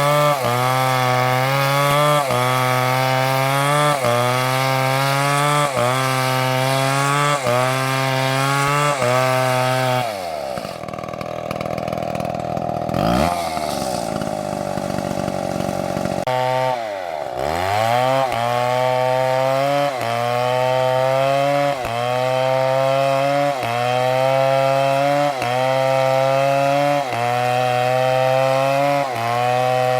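STIHL chainsaw cutting wood, its engine pitch rising and falling about once a second as the saw works through the cut. About ten seconds in the engine drops to a lower speed for several seconds, then revs back up and resumes the same rhythm.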